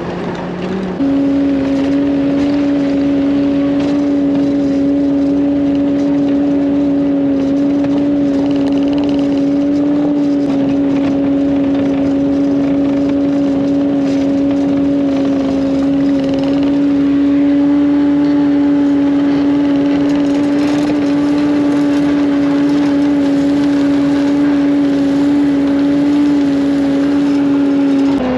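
Skid steer's diesel engine running steadily at high throttle. It steps up about a second in, then holds a constant pitch.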